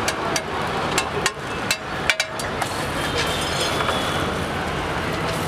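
Metal spatula clicking and scraping against a large flat griddle (tawa) as a roti is worked and turned, with several sharp clicks in the first two seconds. Steady street traffic noise runs underneath.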